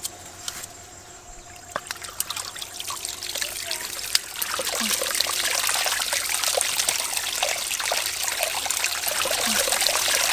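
Water poured from a bottle into an aluminium pot of rice, splashing and trickling onto the grains as they are washed. A few light knocks come first, and the pouring grows louder from about four seconds in.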